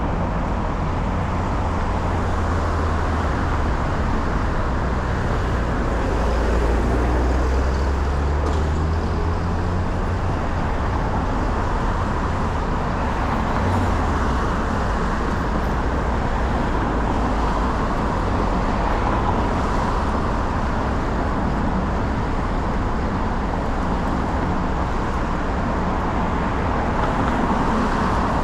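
Steady city road traffic noise, with a vehicle engine running low and close in roughly the first ten seconds.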